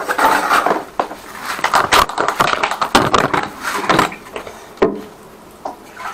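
Flex shaft drain cleaner spinning its cable in a blocked urinal drain pipe, with loud, irregular knocking and rattling as the shaft beats against a hard blockage that the plumber suspects is set cement. It goes quieter near the end.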